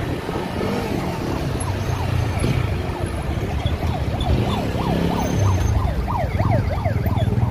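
A siren sounding in a fast up-and-down yelp from about halfway through, over the steady low rumble of engines in slow, jammed traffic.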